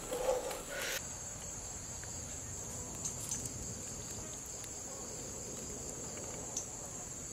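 A steady, high-pitched insect chorus drones without a break. There is a short rustle of handling in the first second and a few faint clicks later.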